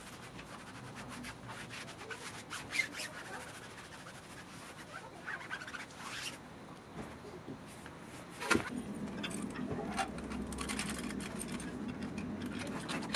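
Rubbing and scraping with scattered light clicks, then one sharp knock about eight and a half seconds in, after which a low steady hum joins in.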